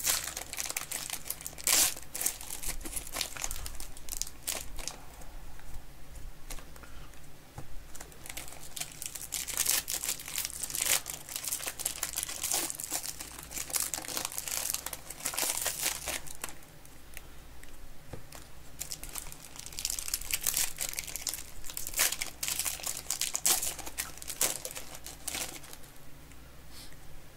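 Foil trading-card pack wrappers crinkling and tearing as packs are opened and handled, in irregular bursts.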